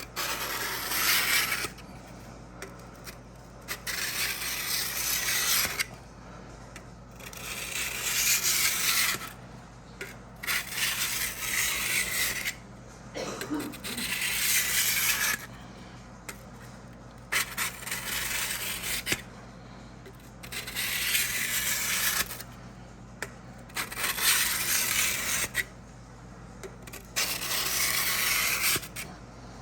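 A steel drawknife edge being honed on a 300-grit diamond sharpening block wetted with WD-40: about nine long scraping strokes, each lasting around two seconds, with short pauses between them.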